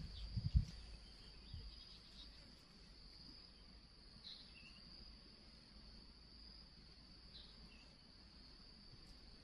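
Faint, steady high-pitched droning of insects, with a few low dull thumps in the first second and a couple of short faint chirps later.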